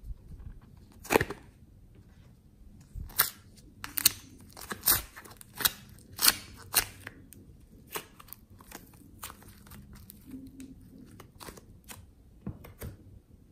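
Soft modelling clay being squeezed and peeled by hand out of its clear plastic casing: irregular sharp crackles and crinkles of the plastic, thickest in the middle and thinning out near the end.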